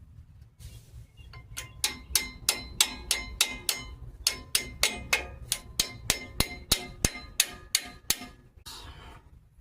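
A hammer striking metal brake parts about three times a second, each blow ringing, in a steady run of some twenty strikes that starts a second and a half in and stops near the end.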